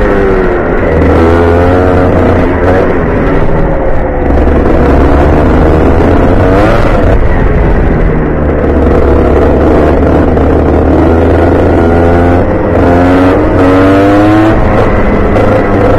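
Rotax Junior Max 125cc two-stroke kart engine heard onboard, its pitch falling off and climbing again several times as the kart slows for corners and accelerates out.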